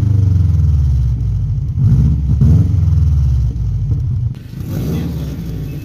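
A 2003 Subaru WRX's turbocharged flat-four engine running loud through a 4-inch axle-back exhaust with a cannon tip, a deep rumble. The rumble swells twice about two seconds in, then the level drops suddenly after about four seconds.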